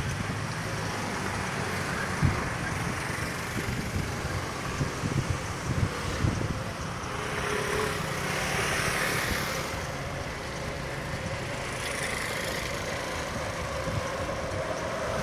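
Steady road traffic noise from vehicles idling and passing, with a swell of passing-vehicle noise about halfway through. A few short low thumps come in the first half.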